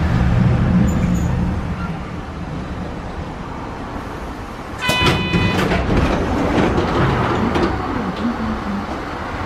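Sapporo streetcar 240-type tram running slowly along the track, heard from inside the car: a low rumble that eases off after about two seconds. About five seconds in, a short horn-like toot sounds.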